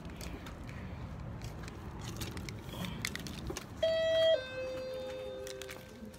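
A two-note electronic chime: a short, loud higher note about four seconds in, dropping to a longer lower note that holds for over a second. Before it, low rumble and rustle of a phone being carried while walking.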